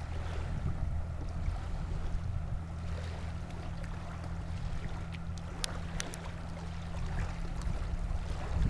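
Open-air lake ambience: a steady low rumble with a light wash of lapping water, and two sharp clicks about halfway through.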